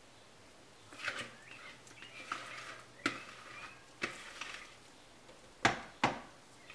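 Silicone spatula scraping cake batter out of a plastic mixing bowl into a metal ring cake tin. Sharp knocks come about once a second, the two loudest close together near the end.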